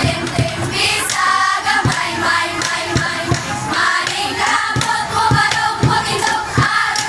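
Dance music with singing over a steady drum beat, about two beats a second.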